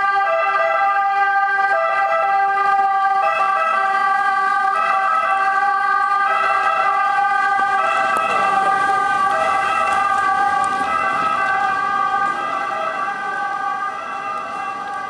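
Two-tone emergency-vehicle siren, alternating evenly between two pitches over a steady held tone, growing fainter over the last few seconds.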